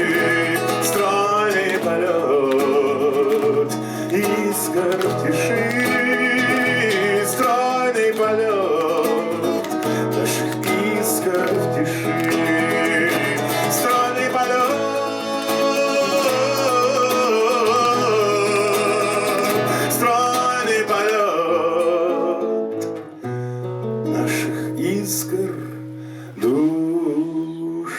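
Acoustic guitar music with a wavering melody line over it, the instrumental close of a bard song. It thins out and drops about 22 seconds in, then picks up again near the end.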